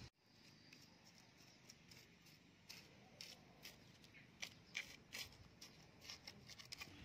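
Near silence, with faint, irregular small ticks and rustles scattered through it.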